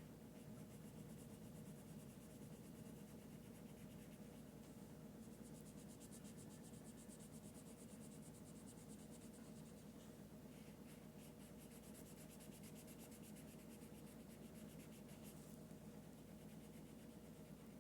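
Faint felt-tip marker scribbling on a foam squishy: rapid back-and-forth strokes in long runs broken by short pauses, over a steady low hum.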